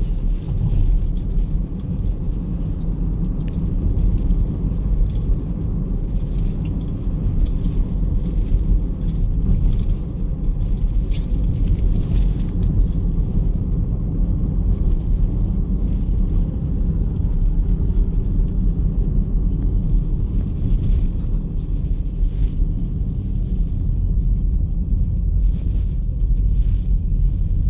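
Cabin noise of a Chevrolet SUV being driven: a steady low rumble of road and engine noise heard from inside the car.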